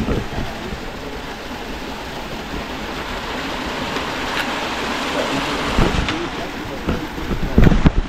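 Steady rush of a mountain stream flowing over rocks, with a few knocks and bumps near the end.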